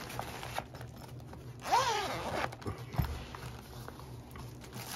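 Zipper on a nylon ukulele gig bag being pulled open, with a quick rasping run of the zipper about two seconds in, a few light clicks, and a soft knock about three seconds in.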